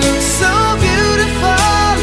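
Background music from a slow love ballad, here without words: a melody line gliding between notes over held chords.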